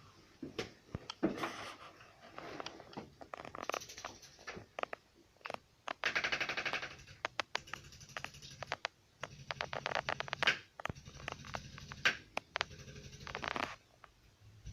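Bursts of rapid, evenly repeated tapping, each lasting about a second or two, with scattered single clicks and knocks between them.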